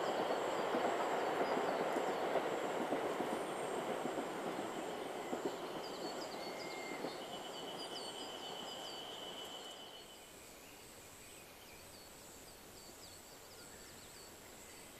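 Diesel train running along the track with wheels clattering over the rail joints, fading into the distance and gone after about ten seconds.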